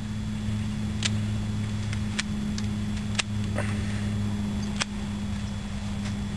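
Hand secateurs snipping lateral shoots off a grapevine cane: several short, sharp snips at irregular intervals, three of them louder, over a steady low hum.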